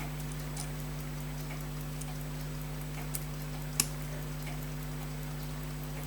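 Faint, scattered clicks of watchmaker's tweezers and tiny watch parts being handled on the bench, with one sharper click a little before four seconds in, over a steady electrical hum.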